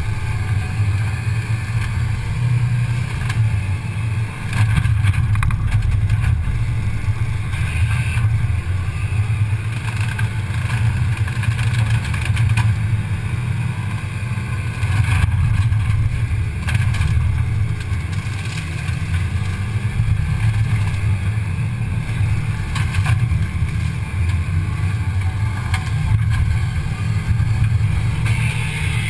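Cat 320 excavator's diesel engine and Slash Buster brush-cutting head running, a steady low drone with a steady higher whine over it and scattered short knocks, heard from a camera mounted on the front of the machine.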